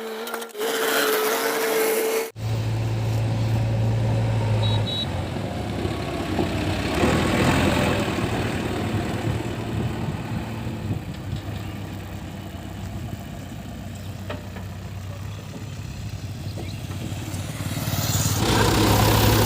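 Heavy diesel machinery at work: a backhoe loader's engine runs with a steady low hum, its loudness rising and easing as it takes load. A different sound cuts off suddenly about two seconds in, where the engine noise begins.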